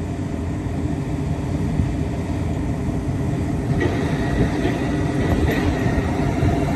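Heavy diesel construction machinery running with a steady low rumble. From about four seconds in, a faint high whine joins it.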